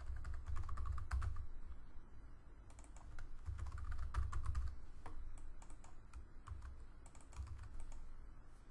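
Typing on a computer keyboard: rapid key clicks in short bursts, with pauses between.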